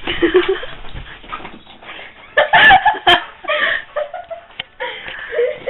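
Excited young dog whining and yipping in play, loudest in a short cluster of cries about two and a half to three seconds in.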